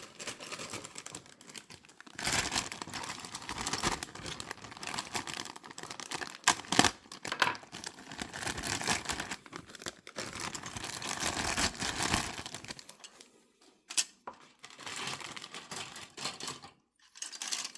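Plastic parts bags from a model car kit crinkling and rustling as they are handled, with a few sharp clicks in between.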